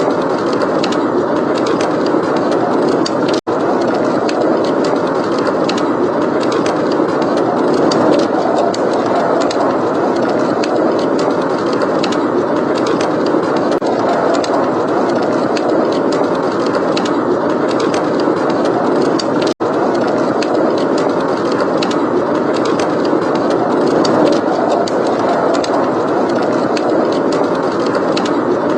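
Blizzard wind blowing as a steady, heavy rush, mixed with the light crackle and pops of a wood fire in a fireplace. The sound cuts out for an instant twice.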